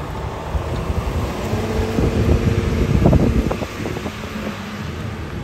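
Rear-loader garbage truck's engine running as the truck pulls away, growing louder about two to three seconds in, with a few short rattles from the truck near the loudest point.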